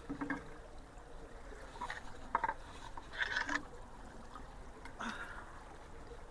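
Creek water pouring down into a freshly unclogged culvert, a steady rush broken by several short splashes.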